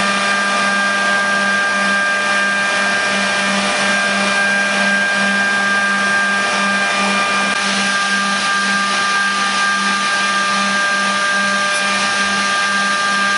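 Griggio GB 5-8RA edgebanding machine running with its motors and feed track switched on but no panel fed: a steady machine hum with high whining tones and a low drone that throbs evenly.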